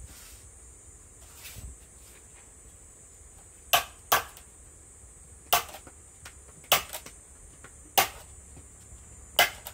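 Six sharp strikes of a hand tool on wood, a second or so apart, with a quiet lull before the first.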